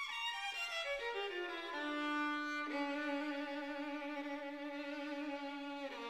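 Background music: a single melodic line that steps quickly down in pitch, then holds a long low note with vibrato, changing note near the end.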